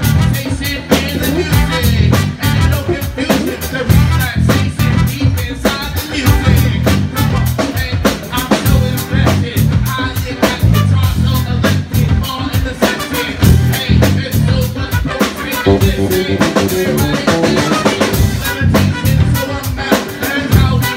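Live band playing an upbeat groove: drum kit and bass keep a steady beat, with guitar, trumpet and a man singing over it.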